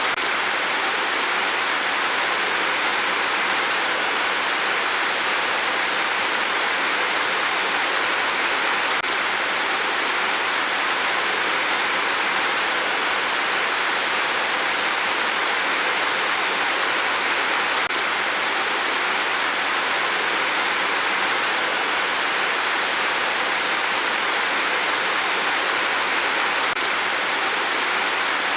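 Steady, unbroken rainfall, a dense even hiss of drops with no distinct gusts or changes.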